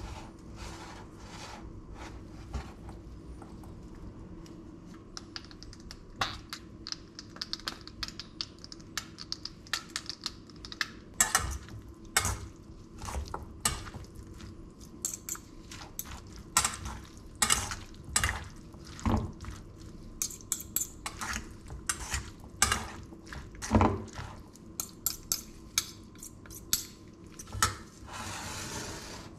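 Metal spoon and fork clinking and scraping against a stainless steel mixing bowl as a chunky tuna salad is tossed. The sound starts as light scraping and turns into sharp clinks about once a second partway through.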